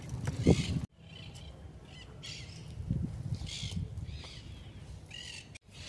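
Birds chirping in a few short calls over a low steady rumble.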